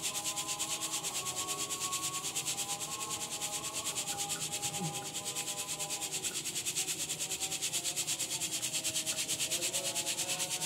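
Roasted rice flour sifted through a fine mesh sieve, shaken back and forth by hand. The powder rasps on the mesh in a quick, even rhythm of about six strokes a second.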